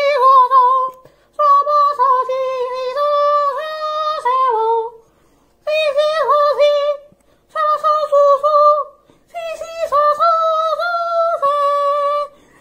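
A single unaccompanied voice singing a high, wordless dramatic tune in five short held phrases with pauses between, wavering on the first note.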